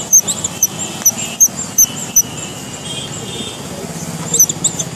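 Toy mice giving a run of short, high-pitched squeaks, about two or three a second, which break off for about two seconds midway and start again near the end.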